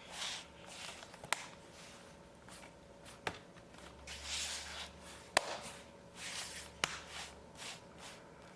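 Hands handling a laptop: a few sharp, separate clicks among soft rustling and sliding sounds.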